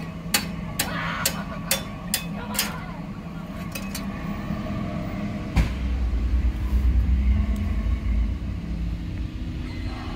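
A car's low running rumble. A sharp ticking comes about twice a second for the first three seconds or so. About halfway through there is a single knock, after which the low rumble grows louder.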